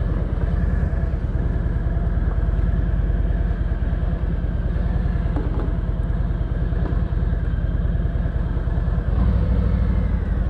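Harley-Davidson Road King Special's V-twin engine running with a steady, low pulsing beat that gets louder about nine seconds in.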